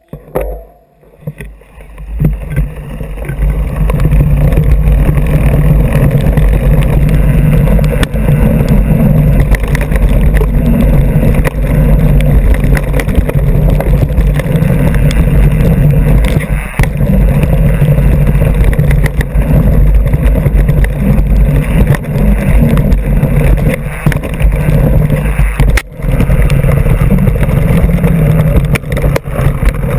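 Wind rushing over the microphone of an action camera on a mountain bike's front fork, with rumble from the front wheel rolling over a dirt trail. It is quiet for the first couple of seconds, then builds to a loud, steady rumble by about four seconds in, with one brief dip near the end.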